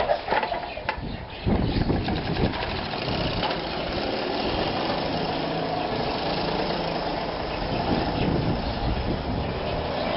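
VéloSoleX 5000 moped's small two-stroke engine running on a test ride after carburettor jet and ignition timing adjustments, with a few knocks in the first second and a half and then a steady engine noise.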